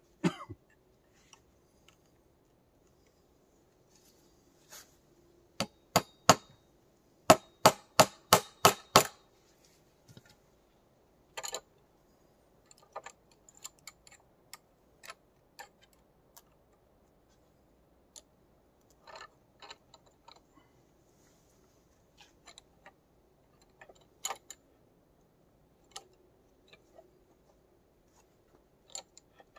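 Sharp knocks: a few scattered ones, then a quick even run of about ten hard strikes, roughly four a second, from about six to nine seconds in, followed by lighter scattered taps and clicks.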